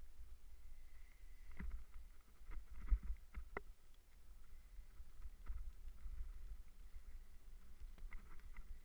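Low wind rumble on the microphone, with scattered knocks and rattles from a mountain bike rolling over a rough trail.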